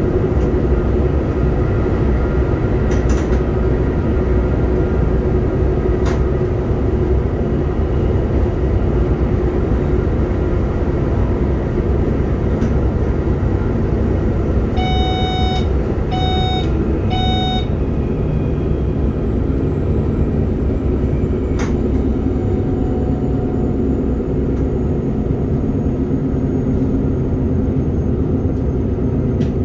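SBB RBDe 560 'Domino' electric train running along the line, heard from inside the driver's cab: a steady rumble of wheels and running gear with a low hum. About halfway through, three short electronic beeps sound in the cab.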